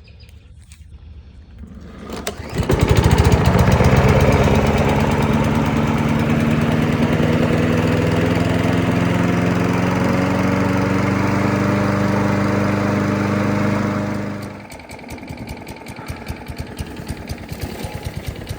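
Kohler Courage XT overhead-valve single-cylinder engine on a Craftsman push mower pull-started about two and a half seconds in, running steadily with its pitch creeping slightly upward, then cutting out near the three-quarter mark to a fainter irregular clatter. It is running with its automatic choke still closed; the choke is not coming off, which the mechanic blames on the thermistor rather than the carburetor.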